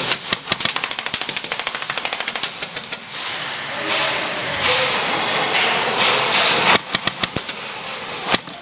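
Airsoft gun firing a long, rapid full-auto burst of sharp clicks for about two and a half seconds, then a few more shots a little before the end, over a background hiss.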